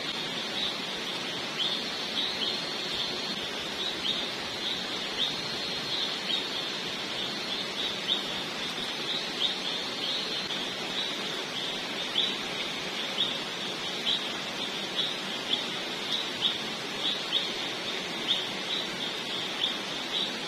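Night forest ambience: short high chirps from a calling animal repeat about twice a second, over a steady hiss. A thin high whine sits under them for the first half.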